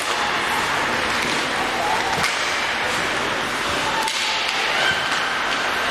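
Ice hockey play on a rink: a steady hiss and scrape of skate blades on ice, with a few sharp clacks of sticks and puck, the two loudest about two and four seconds in.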